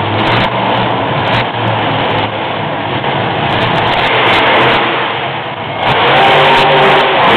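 Monster truck engine revving hard as the truck jumps a row of crushed cars, getting louder about six seconds in.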